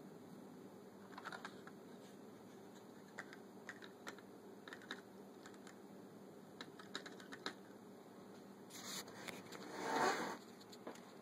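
Faint handling noise: scattered light clicks and taps over a steady low hum, with a louder brief rustle about ten seconds in.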